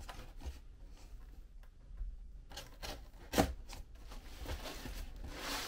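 Knife blade slitting the packing tape along a cardboard box's seam: quiet scraping and rubbing on the cardboard, with a sharp knock about three and a half seconds in.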